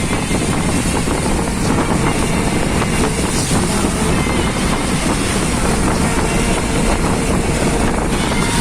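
A moving vehicle running steadily, with loud wind noise buffeting the microphone.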